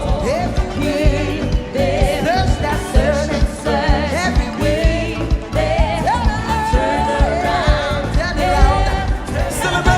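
Gospel worship song: a singer's wavering melody over a band with a steady drum beat and bass.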